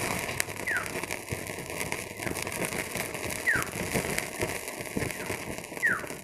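Molten candle wax and water in a metal bottle cap heated over a candle flame, sizzling and crackling steadily as the water boils and spatters in the hot wax.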